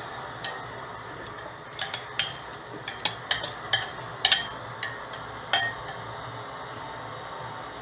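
Utensils clinking against a bowl while a salad is mixed: about a dozen sharp, irregular clinks over the first five and a half seconds.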